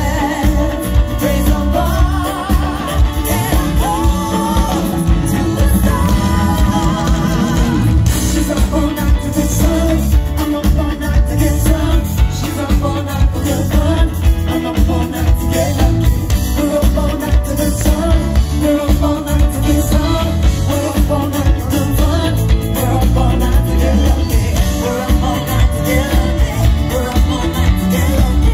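Live disco-funk band playing with a singer, amplified through the stage PA and heard from the crowd: a steady dance beat under guitar, bass and sung vocal lines.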